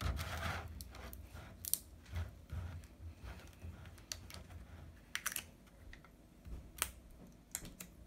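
Plastic gallon jug of tea being handled and its cap worked open: scattered small, irregular clicks and crackles of plastic.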